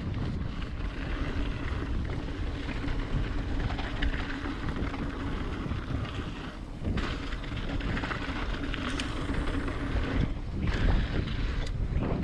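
Wind buffeting the microphone of a mountain bike's action camera, along with the tyres rolling over a dry, rocky dirt trail at speed. A few short clicks and rattles come from the bike, one about nine seconds in and one near the end.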